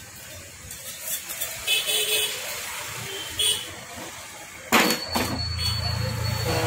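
Metal clinks and rattles from a stripped Hero Splendor Plus engine crankcase as it is turned over and handled by hand, with one loud knock about three-quarters of the way through. A steady low hum sets in just after the knock and carries on.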